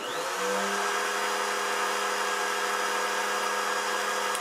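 Kobalt trim router, mounted as the CNC's spindle, switched on and spinning up to speed within about half a second, then running with a steady, quiet whine.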